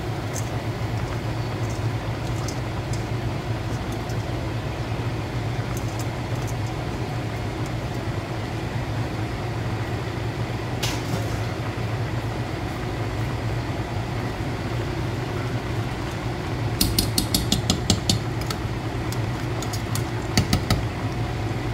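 Steady low mechanical hum over a stainless-steel pot of coconut milk simmering on the stove. Near the end come a quick run of sharp metal clicks and a few more taps as a spoon knocks against the pot while pushing the moringa leaves down.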